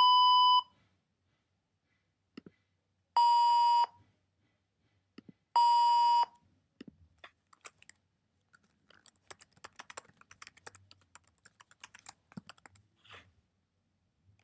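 Censor beep: a steady tone pitched near 1 kHz, sounded three times, each about half a second long, once at the start and again about three and five and a half seconds in. Afterwards comes a run of faint, quick, irregular clicks.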